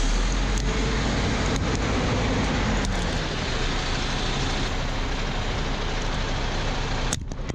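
A truck engine running steadily close by as the truck creeps forward and back over plastic toys, with a few sharp clicks in the first three seconds. It cuts off just before the end.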